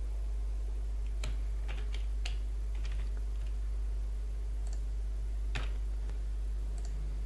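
Computer keyboard being typed on: scattered, irregular key clicks, a few close together and then single ones, over a steady low electrical hum.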